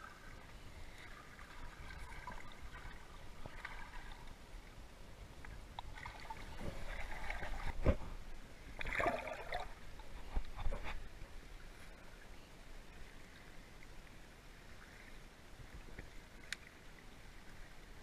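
River water heard from just under the surface: a low swirling and bubbling. About six seconds in, a few seconds of louder splashing and gurgling begin, with sharp knocks near eight and ten seconds.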